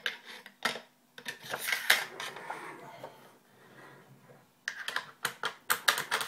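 Metal parts of a WE SCAR gas blowback airsoft rifle clicking and scraping as the bolt is slid back into its aluminium upper receiver. Sharp clicks come in clusters, with a quieter stretch in the middle and a quick run of clicks near the end.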